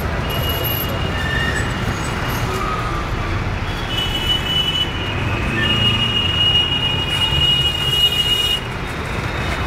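Steady din of road traffic. A thin, high-pitched whine sounds over it from about four seconds in until near the end.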